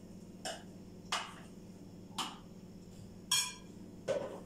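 Sharp clicks and knocks as a food processor's jar and lid are handled, about five in all, the one about three seconds in ringing briefly like glass. A faint steady low hum lies under them.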